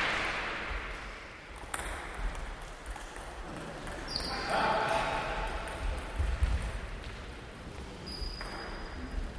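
Table tennis rally: a celluloid ball clicking back and forth off bats and the table, a run of sharp ticks, with a couple of short high squeaks in between.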